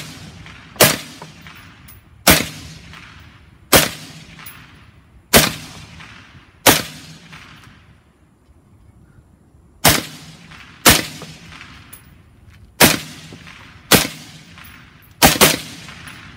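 Suppressed 5.56 mm semi-automatic carbine (LWRCI IC-E with a SilencerCo Saker 556 suppressor, gas system set to its suppressed setting) firing about eleven single shots, mostly one to one and a half seconds apart with a pause of about three seconds midway and a quick double near the end; each shot rings out and fades.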